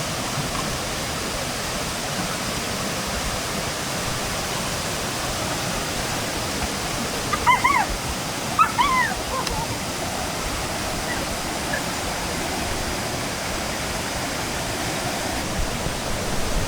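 Rushing water from a waterfall or forest stream, a steady even rush. About seven seconds in there are a few short calls, which may be a voice or an animal.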